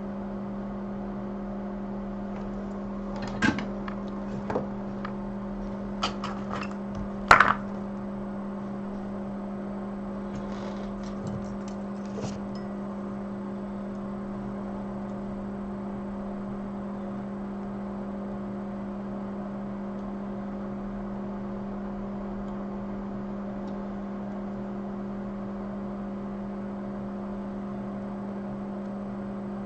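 Steady low electrical hum of running workbench equipment at one fixed pitch, with a few sharp clicks and knocks of tools being handled in the first eight seconds, the loudest about seven seconds in.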